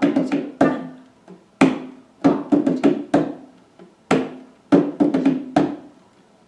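Goblet-shaped hand drum struck with the bare hands, playing a repeating syncopated rhythm: a single hit followed by a quick run of four or five hits, the pattern coming round about every two and a half seconds. Each stroke rings briefly at the drum's pitch.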